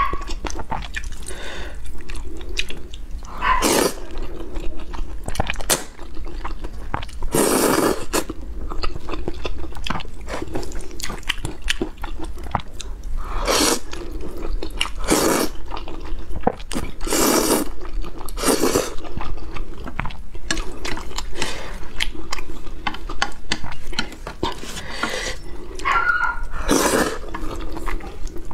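Close-miked eating of saucy noodles: a series of loud, wet slurps as strands are sucked up from the chopsticks, about seven in all, with wet chewing and smacking between them.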